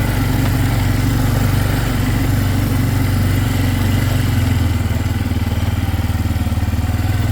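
A vehicle engine running steadily with a low, even pulsing note that shifts slightly about halfway through.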